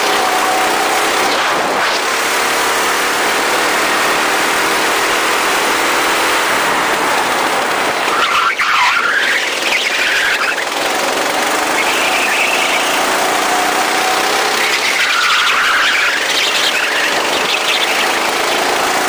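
Go-kart engine running hard, its pitch dropping and climbing again a few times as the kart slows and accelerates.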